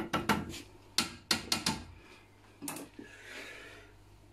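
Sharp clicks and knocks of a Thermomix's steel mixing bowl and its fittings being handled: a quick run of about eight in the first two seconds, one more a little later, then a brief soft rub.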